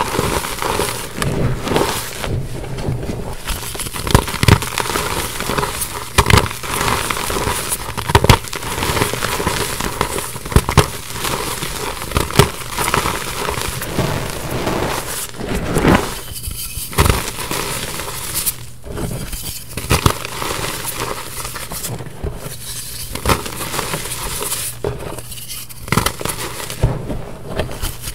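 Hands squeezing and crumbling reformed gym chalk in a heap of chalk powder: a dense crunching and crackling with many sharp little snaps as the pressed lumps break apart, broken by a few short pauses in the second half.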